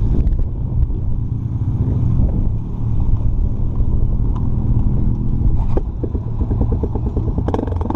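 Sport ATV engine running at low speed as the quad is manoeuvred on gravel, then louder and fuller near the end as it is given more throttle.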